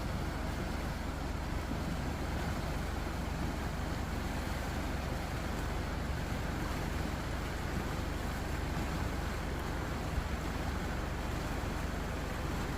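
Floodwater of a flash flood rushing steadily down a wadi, an even, unbroken rush of water.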